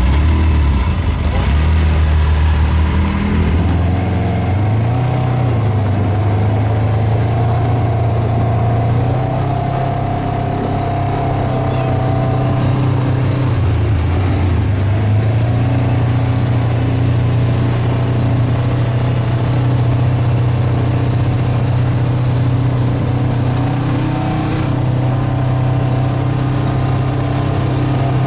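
Polaris side-by-side buggy engine running under way, heard from onboard. The engine note holds steady, rising in pitch about four seconds in, dipping around the middle and climbing again as the throttle changes.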